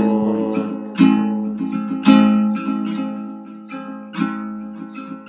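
Instrumental gap between sung lines: acoustic guitar strumming chords about once a second, each chord left to ring and fade.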